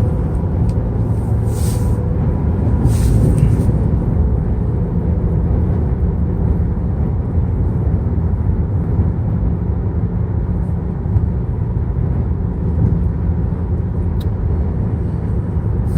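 Steady road and engine rumble heard inside a vehicle cruising at highway speed, with two brief hissing swells of passing air or traffic a couple of seconds in.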